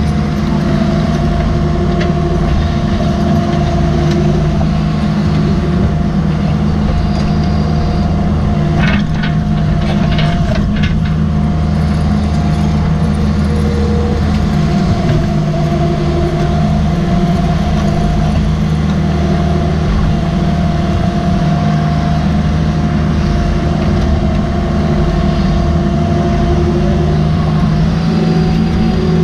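Cat 305.5E mini excavator working while it digs: the diesel engine runs steadily under load with a hydraulic whine that rises and falls as the boom and bucket move. A few sharp knocks of rock against the steel bucket come about 9 to 11 seconds in.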